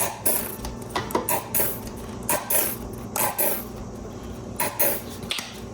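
Kitchen clatter: a string of clinks and knocks from dishes and utensils, mixed with short hissing sputters, as mustard is worked out of a nearly empty squeeze bottle.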